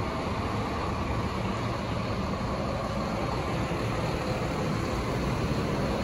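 Steady rumble and hiss of buses running with their engines idling in a bus terminal bay.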